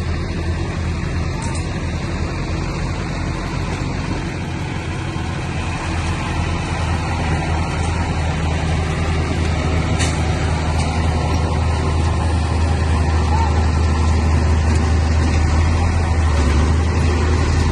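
Bulldozer's diesel engine running steadily under load, growing a little louder about six seconds in, with a single sharp clank near the middle.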